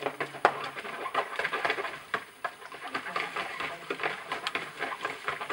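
A Bernese mountain dog splashing and stamping about in the water of a plastic paddling pool, making a rapid, irregular run of splashes.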